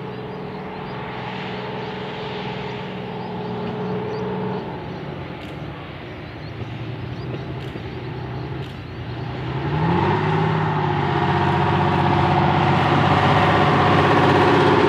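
Vintage diesel electric rail motor with a GM 6-71 diesel engine running as it approaches and passes close by. The engine note eases off about a third of the way in. About two-thirds in it rises in pitch and grows much louder as the engine revs up.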